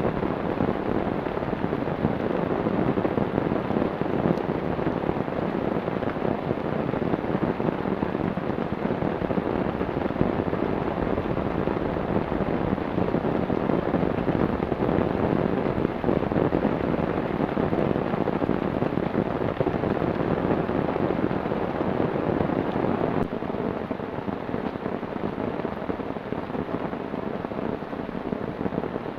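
Heavy rain pouring steadily as a dense, even hiss, a little quieter over the last few seconds.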